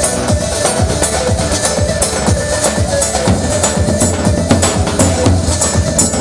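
Kurdish wedding dance music from a live band: a keyboard melody wavering over a steady electronic kick-drum beat.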